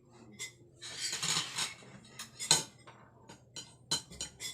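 Cutlery clinking and scraping against plates and dishes at the start of a meal, in a string of sharp clicks with a longer scrape about a second in.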